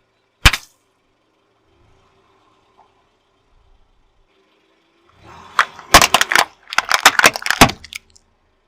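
A single sharp crack about half a second in, then a dense run of crunching and cracking for about two seconds near the end, as a car tyre crushes something brittle.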